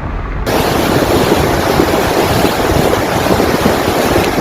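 Hail pelting down hard: a dense, loud clatter of countless small strikes with a wind-like rush. It begins abruptly about half a second in, after a brief low rumble.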